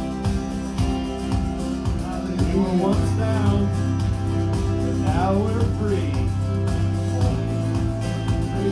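Live worship band playing an instrumental stretch of a praise song, with sustained chords and a held bass note through the middle. Brief wordless singing glides through a couple of notes about two and a half seconds in and again around five seconds in.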